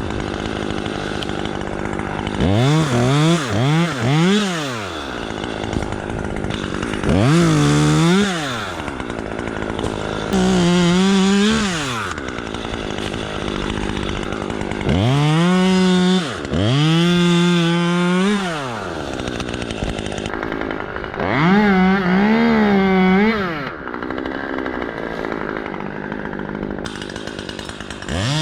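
Chainsaw revved to full throttle in about six bursts of a second or two, cutting, its pitch climbing steeply each time and falling back to idle between. The first burst, a few seconds in, is a quick run of short blips.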